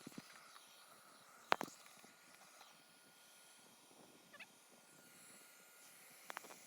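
Faint background hiss broken by a few sharp clicks or knocks, the loudest about one and a half seconds in and a quick pair near the end, with a brief faint warbling chirp about four seconds in.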